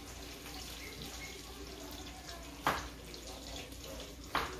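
Homemade buffalo sauce heating in a small frying pan on a gas burner: a steady low hiss broken by two sharp pops, one a little past halfway and one near the end.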